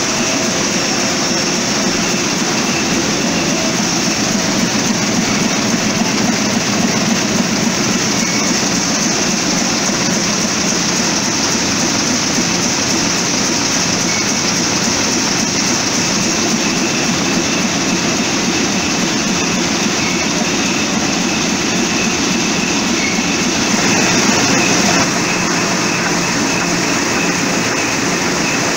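A 2011 Heidelberg Speedmaster SM 74-4 four-colour sheetfed offset printing press running, with a loud, steady, dense mechanical noise. It gets briefly a little louder a few seconds before the end.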